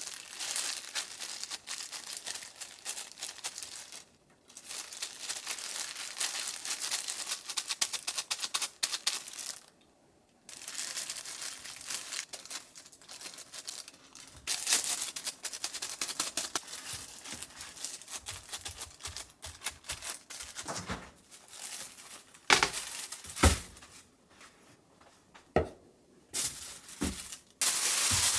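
Clear disposable plastic glove crinkling and rustling in long stretches as filling is pressed into shiitake mushroom caps, with short pauses between. In the latter part a few sharp knocks break in, and near the end the glove rustles loudly as it is pulled off.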